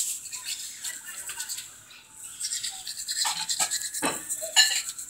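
Manual toothbrush scrubbing teeth in quick back-and-forth strokes. The strokes ease off briefly about two seconds in, then resume with a few louder knocks near the end.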